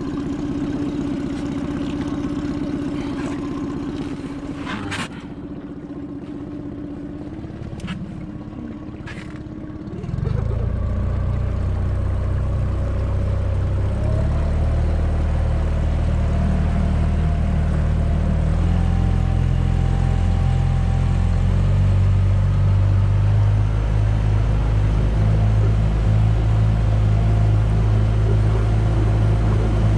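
Tohatsu 20 hp outboard motor on an inflatable boat running steadily at low speed, with a few light knocks, then throttled up about ten seconds in, its pitch briefly rising, and running louder and steadier at speed. The engine is new and being broken in.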